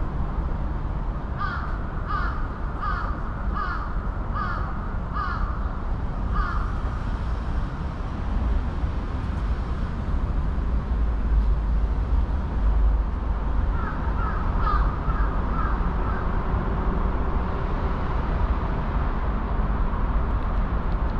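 Crow cawing: a run of about seven evenly spaced caws, then a second, quicker run of about five caws some seconds later, over a steady low rumble.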